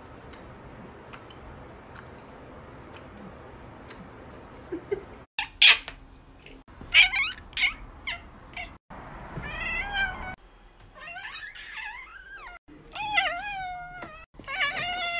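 A domestic cat meowing over and over through the second half, a string of drawn-out calls whose pitch rises and falls. Before that there is only a faint low background with a few light clicks.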